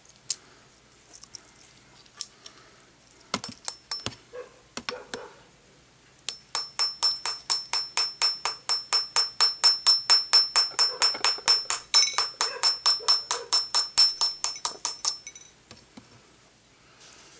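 Metal tool striking quartz crystals on a ceramic plate: a few scattered knocks, then rapid, even tapping at about four to five strikes a second that starts about six seconds in and stops a couple of seconds before the end.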